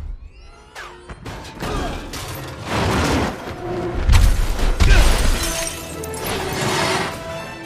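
Action film soundtrack: a music score under several loud crashes of cars smashing and glass shattering, a second or so apart.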